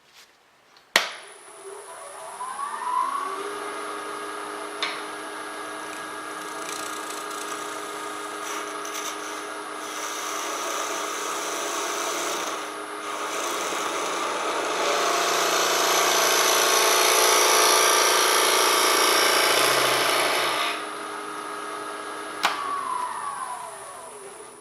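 Wood lathe switched on with a click, its motor whine rising as it spins up, then running steadily while a tool works the spinning wood blank, the cutting noise loudest in the second half. Switched off with a click near the end, the whine falling as the lathe winds down.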